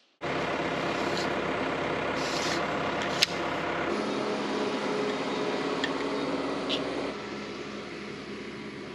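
Excavator's diesel engine running steadily, with a single sharp knock about three seconds in; the engine sound drops a little around seven seconds.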